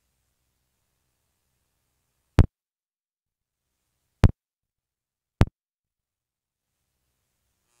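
Three sharp clicks over near silence, the first about two seconds in, then two more a little under two seconds and just over one second later.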